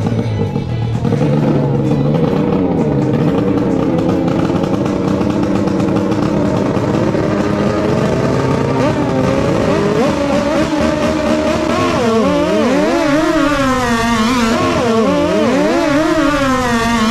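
The 650 jet-ski engines of two longtail racing boats are running at the start, rising in pitch. From about twelve seconds in they rev hard, their pitch swinging up and down with the throttle.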